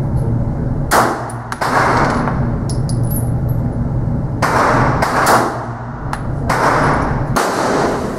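About six pistol shots from a .40 caliber Glock 27, fired in loose pairs, each ending in a short echo off the walls of an indoor range, over a steady low hum.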